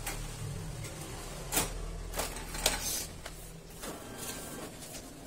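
Paper being loaded into a photocopier's pulled-out paper cassette: rustling sheets and three sharp knocks near the middle as the stack is set in the tray, over a low steady hum.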